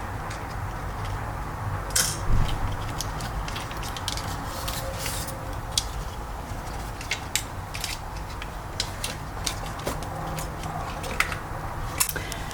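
Light irregular clicks and taps of a screwdriver and small plastic and metal steering-wheel parts being handled during unscrewing, a little louder about two seconds in, over a steady low hum.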